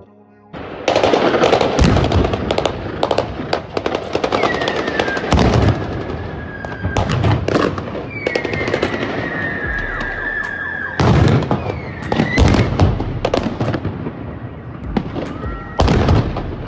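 Crowd-dispersal grenades going off in rapid succession: stun and smoke grenades bursting with many sharp bangs and a few louder blasts. They start suddenly about half a second in. A few long shrill tones, each falling and then held, sound over the bangs.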